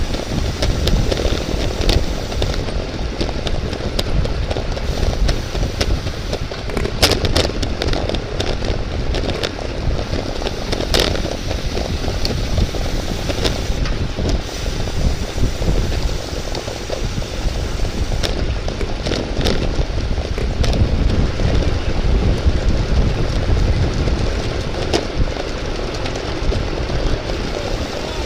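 Wind rushing over the microphone of a camera on a bicycle at racing speed, mixed with tyre and road noise. A few sharp clicks stand out, around 7 s, 11 s and 25 s in.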